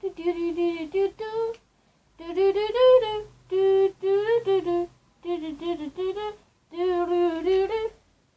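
A young girl's voice humming a tune in about six short phrases of held and gliding notes, with brief pauses between them.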